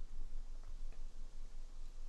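A few faint ticks from a keyboard PCB being handled, over a steady low hum.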